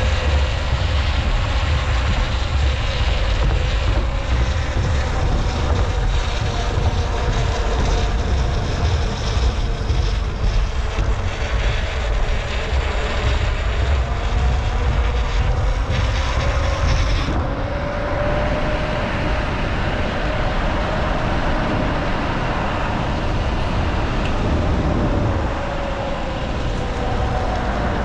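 Kaabo Wolf King GT Pro electric scooter being ridden: wind buffets the microphone with a heavy rumble, over a faint motor whine that slowly rises and falls with speed. The rushing hiss eases a little about two-thirds of the way through.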